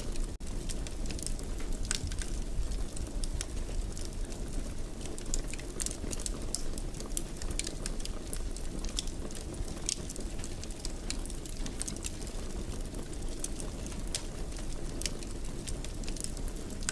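Wood fire burning in a fireplace: a steady low rumble with irregular sharp crackles and pops, and a brief dip in the sound about half a second in.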